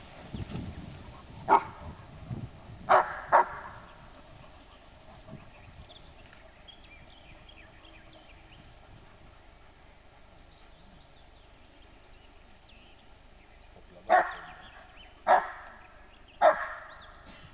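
German Shepherd barking at a figure in a white sheet, a defensive reaction during the 'ghost' exercise of a Swedish dog mentality assessment (MH). Three barks come in the first few seconds, the last two close together. After a pause, three more come about a second apart near the end.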